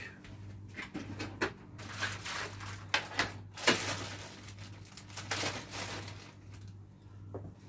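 Small screws and hardware being picked through by hand on a workbench: irregular clicks, light rattling and rustling, with one sharp knock about three and a half seconds in, over a steady low hum.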